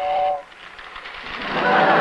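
Toy electric train whistle: a short steady two-tone blast, then a hissing rush with the whistle tone in it that builds from about a second in.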